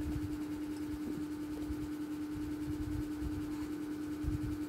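A steady, even hum at one mid pitch, with irregular low rumbling and bumps underneath.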